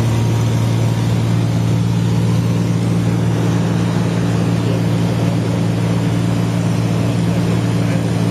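Light aircraft's engine and propeller running steadily in flight, heard from inside the cabin as an even, unchanging drone.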